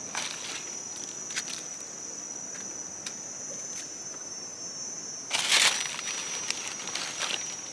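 Steady high-pitched insect drone from the forest, with dry leaves and twigs rustling and snapping as a hand reaches into the leaf litter to pick a mushroom; the loudest rustle comes a little over five seconds in.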